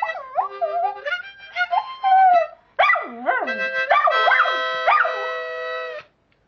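A dog howling along to a harmonica. The harmonica holds steady chords while the dog's wavering howls swoop up and down, dipping lowest about three seconds in. Both stop together about half a second before the end.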